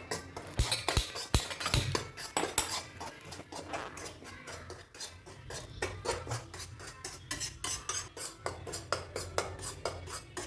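Rapid, irregular clinks and taps, several a second, like hard utensils knocking together, with a few louder knocks in the first two seconds.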